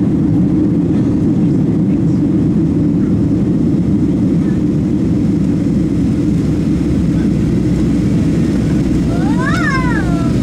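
Steady, loud cabin noise inside a Boeing 737-700 climbing after takeoff: a deep rumble of the CFM56 engines and rushing air. About a second before the end, a brief high-pitched voice rises and falls over it.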